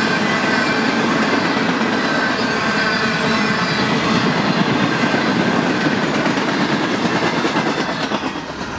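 Freight train tank cars rolling past, steel wheels clicking over the rail joints with a faint high-pitched wheel squeal. The sound drops off about eight seconds in as the last car goes by.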